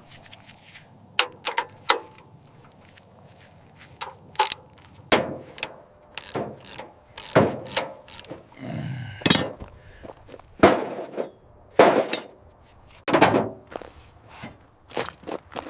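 Hand tools knocking and clanking on metal: a dozen or so sharp, unevenly spaced strikes, with a brief ringing scrape a little past the middle.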